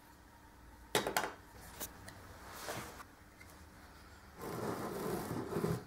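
Hand tools and metal parts being handled on a workbench: a quick cluster of knocks about a second in, a lone knock soon after, then more than a second of scraping that stops near the end.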